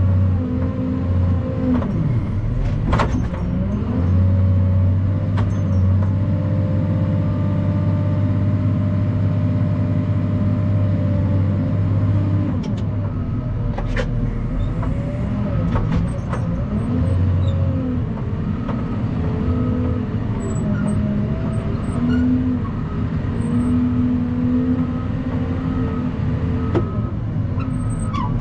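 Heavy truck engine running under way, its pitch rising and falling again and again, with a few sharp clicks.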